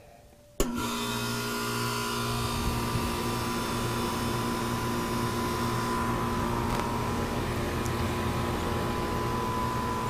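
Central air conditioner's outdoor condenser unit switching on: a sharp click about half a second in, then the compressor and condenser fan running with a steady hum and rushing air. Its coils are being cooled by water mist, which the owner hears as the compressor running a little better.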